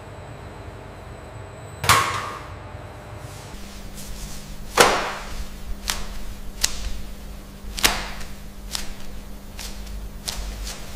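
A string of sharp knocks at uneven intervals over a low steady hum. The first knock, about two seconds in, is the loudest and rings briefly like struck metal.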